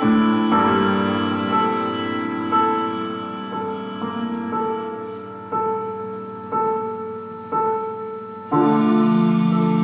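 Slow instrumental music: a note struck about once a second over held tones, each fading before the next. A louder, fuller held chord comes in near the end.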